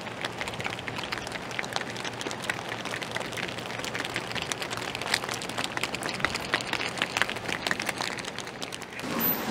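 American bison walking on an asphalt road, their hooves making a dense, irregular run of clicks and taps.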